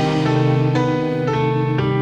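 Background music: a plucked guitar melody with sustained notes, softer and more held than the strummed passages around it.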